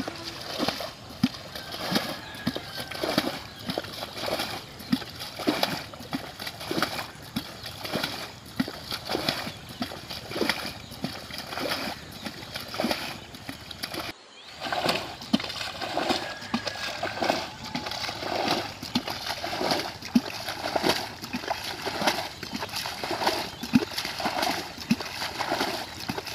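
Muddy water sloshing and splashing in a shallow flooded paddy field, as a plastic bucket scoops water and pours it out in a quick, irregular series of splashes.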